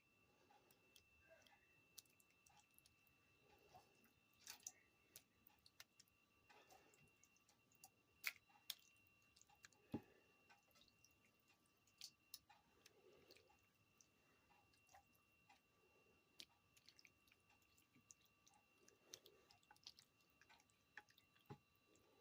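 Near silence with faint, scattered clicks and soft scrapes of a spoon spreading meat sauce in a baking pan, over a faint steady electrical hum.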